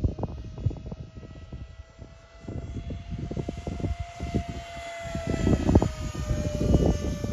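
Arrows Hobby Marlin 64 mm electric ducted-fan jet model flying past: a steady fan whine that climbs slightly in pitch as it approaches and drops about five seconds in as it passes, loudest just after. Wind buffets the microphone with an uneven low rumble.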